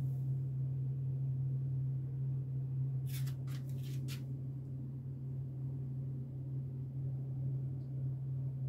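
Steady low hum throughout, like a fan or appliance motor in the room, with a quick run of three or four short scratchy rustles about three seconds in.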